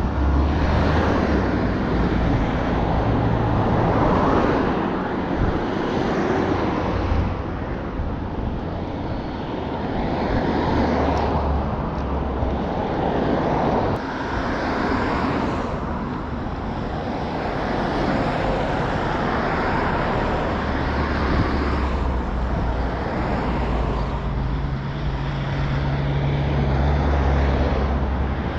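Outdoor ambience of passing road vehicles, swelling and fading every few seconds, with wind rumbling on the microphone.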